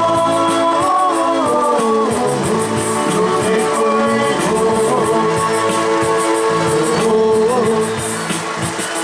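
Music: a rock-style song with a singing voice, guitar and a steady beat.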